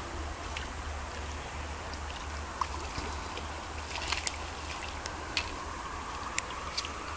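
Steady low rumble and hiss of handling noise on a phone microphone, with a handful of short sharp clicks from about four seconds in.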